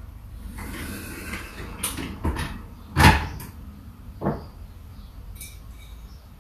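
Kitchen clatter of things being handled and set down: a few clicks and knocks, the loudest about three seconds in and a softer one about a second later.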